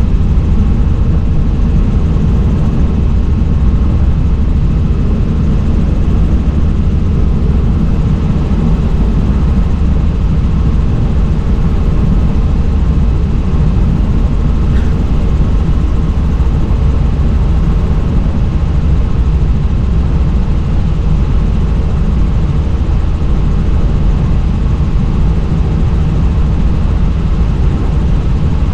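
Helicopter in flight, heard on board: loud, steady engine and rotor noise.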